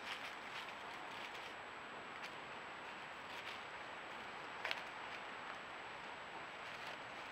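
Badger moving and foraging through dry leaf litter: faint scattered rustles and crackles, one sharper near the middle, over a steady hiss with a thin high whine.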